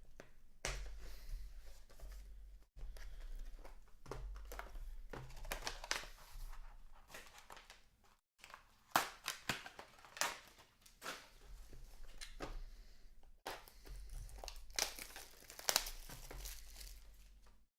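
Plastic wrapping crinkling and tearing in a run of short, irregular rustles and crackles as a trading card pack is opened and its cards handled.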